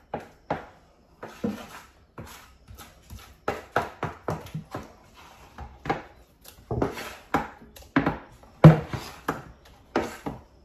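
A kitchen utensil knocking and scraping against a container while dog food is scooped and portioned, an irregular run of short knocks, a few louder than the rest.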